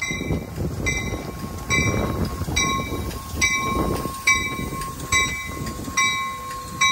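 Amtrak Capitol Corridor train, bilevel cab car leading, rolling slowly into the station with its bell ringing about once a second over the low rumble of the cars.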